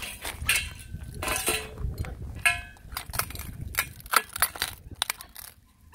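Irregular crunching, clicking and crinkling of loose gravel, broken brick and plastic sheeting as a small puppy walks over them.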